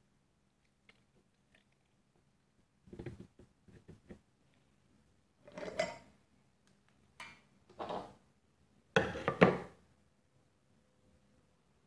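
Glass jar and its metal screw lid being handled on a tabletop: several short clatters and knocks, the loudest about nine seconds in, as a sample of coconut-wine must is taken for a gravity reading.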